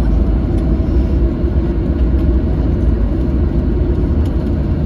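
Steady low rumble inside the cabin of a Boeing 737-700 rolling on the wet ground after landing: engine, tyre and airframe noise.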